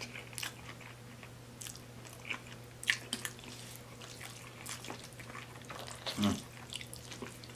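Close-up mouth sounds of a person chewing a mouthful of cheesy spaghetti: soft wet smacks and clicks scattered through, with a slightly louder one about six seconds in, over a steady low electrical hum.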